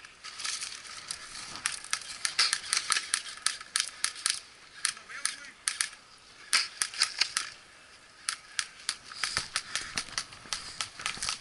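Airsoft guns firing in rapid bursts of sharp snapping shots, with a lull about halfway through and a second stretch of firing near the end.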